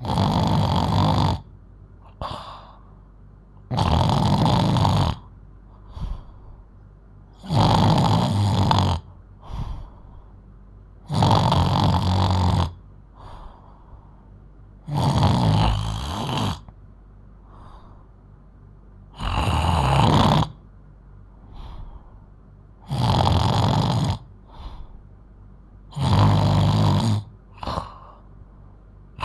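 A 12-year-old girl snoring very loudly in her sleep: a loud snore about every four seconds, eight in all, each followed by a shorter, softer breath.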